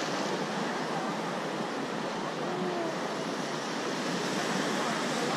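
Sea waves washing steadily against a jetty and the shore, an even rushing with no break.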